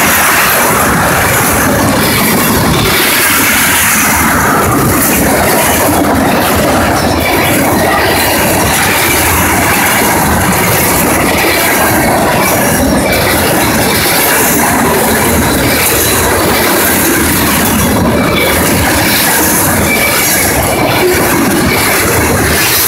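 A freight train of loaded ethanol tank cars rolling past close by: a loud, steady rumble and rattle of steel wheels on the rails.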